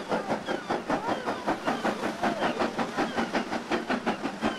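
BR Standard Class 4 2-6-4T steam tank engine working a train away, its exhaust beating in a rapid, even chuff from the chimney.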